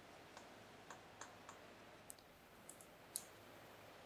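Chalk on a chalkboard while drawing: faint, irregular taps and short scratches, a few a second, the sharpest just after three seconds in.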